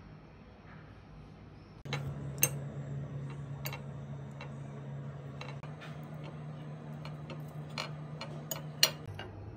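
Metal fork clinking and scraping against a ceramic plate, starting about two seconds in, with irregular sharp clinks, the loudest near the start and near the end, over a steady low hum.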